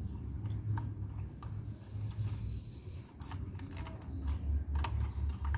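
Small clicks and light taps from hands handling a car amplifier circuit board and its RCA plugs, over a low rumble that swells and fades irregularly.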